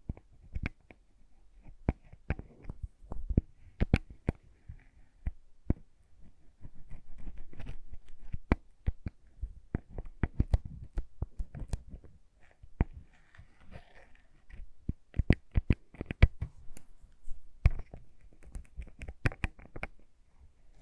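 Close-miked ASMR lip balm sounds: many irregular sharp clicks and taps, with a stretch of rustling about seven to nine seconds in.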